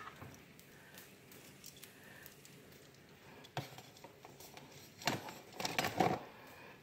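Mostly quiet room tone, with a sharp click about three and a half seconds in and a few short knocks and rustles a second or two later, from things being handled by hand.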